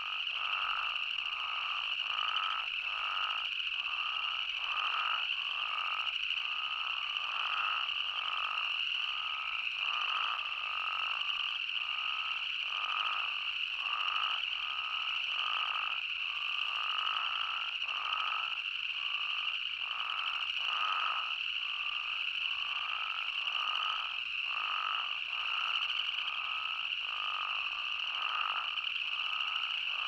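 A chorus of spadefoot toads calling: many overlapping calls, more than one a second, over a continuous high-pitched chorus that runs throughout.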